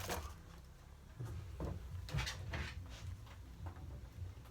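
Faint scattered knocks and short scrapes of a wooden MDF insert being handled and set into a plastic L-BOXX tool case.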